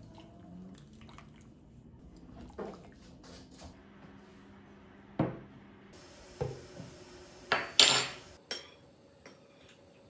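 Tableware being handled: a ceramic soup bowl, ladle and spoon clinking and knocking. About six separate sharp knocks come in the second half, the loudest about three-quarters of the way in.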